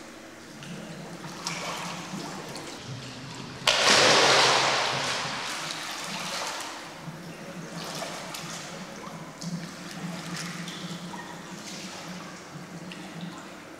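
A person drops from a rubber inner tube into a swimming pool with one loud splash about four seconds in. Afterwards water sloshes and splashes more softly as she moves about in the pool.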